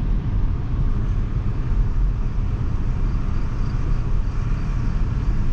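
Swaraj 733 FE tractor's three-cylinder diesel engine running steadily while the tractor drives along the road, a continuous low rumble.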